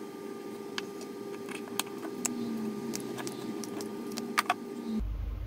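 Light, sharp clicks and taps of hard plastic being handled, a 3D-printed iris valve and a plastic glue bottle, with two louder clicks close together near the end, over a steady low hum.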